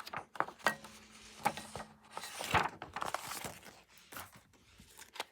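Paper and card rustling, with scattered light taps and crinkles, as an album's folded poster and paper inclusions are handled.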